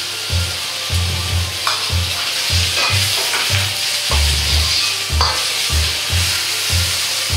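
Vegetables sizzling in a hot wok over a high gas flame while a ladle stirs and scrapes them against the wok, with short clinks and scrapes over the steady sizzle.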